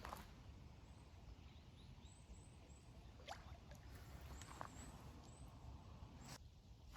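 Near silence: faint outdoor ambience with a low rumble, a few faint high chirps and a couple of soft clicks.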